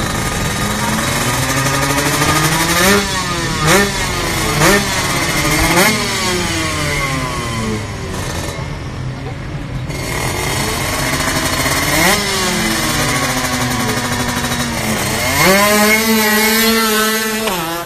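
Drag-race motorcycle engines at the start line, revved in repeated short sharp blips, rising and falling in pitch. Near the end one is held at high revs for about two seconds as the bike launches.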